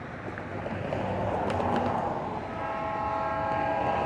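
A car passes over the crossing, and then an approaching train's horn sounds from about two and a half seconds in, a steady chord of several notes held to the end.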